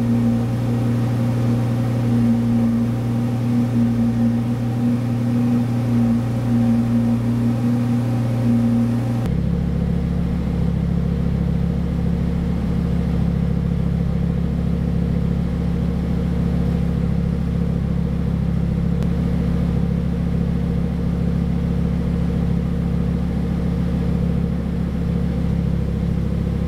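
Audi R8 V10 plus's 5.2-litre V10 idling steadily through its valved Capristo exhaust. About nine seconds in, the sound turns lower and heavier as it is heard from behind the car.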